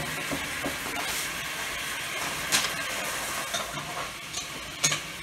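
Steady sizzling hiss of a hot frying pan that has just cooked steak, with a few light clicks like plates or utensils being touched.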